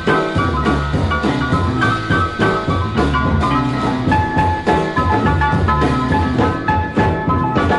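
Free-leaning jazz piano trio from a 1969 vinyl record: piano hammering a quick repeating figure of high notes over double bass and busy drums.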